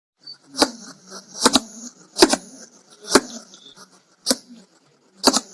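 Hedgehog huffing: six short, sharp puffs of breath, about one a second.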